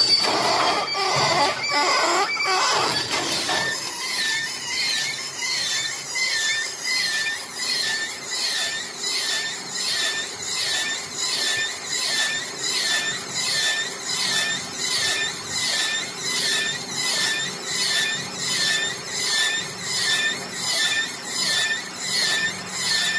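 Bamboo weaving machine running, with a rhythmic squeal and clatter repeating a little over once a second; the first few seconds are a more irregular clatter before the steady cycle settles in.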